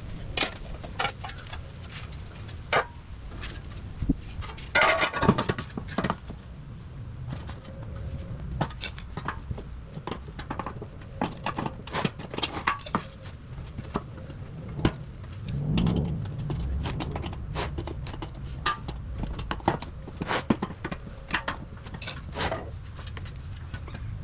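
Handling noise as a metal plate is fitted back onto the side of a vehicle fuel tank with reused clips: scattered clicks, taps and scrapes, with a brief rattling scrape about five seconds in.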